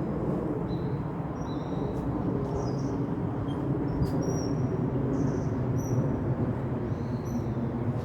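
A steady low rumble of outdoor background noise, with faint short high chirps of birds scattered over it.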